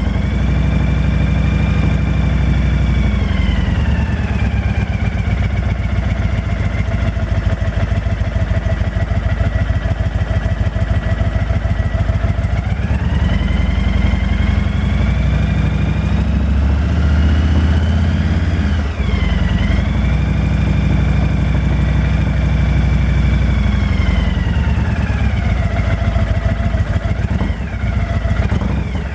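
Honda VTX 1300 V-twin engine running and being revved, with a high whistling whine whose pitch rises and falls with engine speed. The revs drop a few seconds in, climb again around the middle, dip briefly, and fall back near the end. The whine is the strange sound whose engine part the owner cannot identify.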